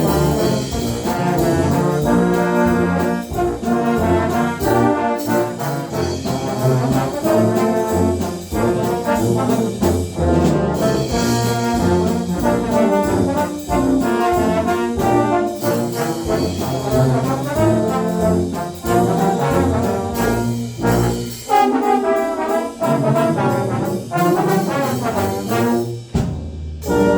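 Low brass ensemble led by trombones playing a jazz march, with a steady, rhythmic beat and full, loud chords.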